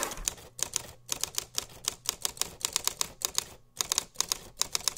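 Typewriter keys clacking in quick, uneven runs of about five strikes a second, with a short pause about three-quarters through, as a sound effect for on-screen text being typed out.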